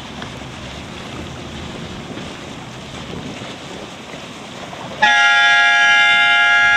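Wind and water noise, then about five seconds in a single long, steady blast of a race committee's signal horn, a loud multi-tone note.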